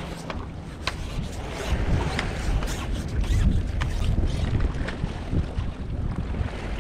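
Wind buffeting the microphone over seawater lapping against breakwater rocks, with scattered light clicks.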